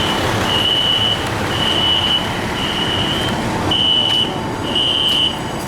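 Building fire alarm going off: a high-pitched electronic beep repeating about once a second, each beep lasting most of a second, over a steady background rumble.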